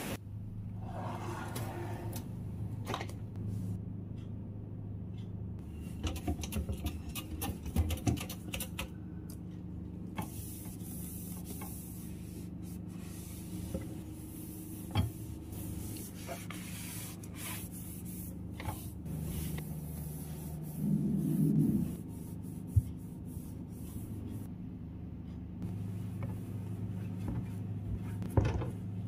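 Cloth wiping glossy kitchen cabinet fronts and a pull-out wire drawer basket, with scattered clicks and knocks from the cabinet fittings, over a steady low hum.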